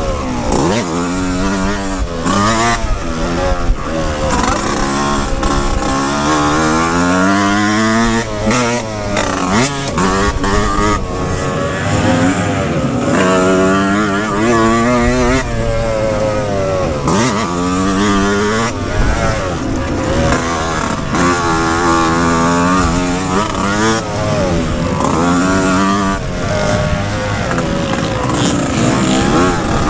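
Yamaha YZ125X's single-cylinder two-stroke engine racing around a motocross track, revving up hard and dropping off again every couple of seconds as the rider works the throttle and gears.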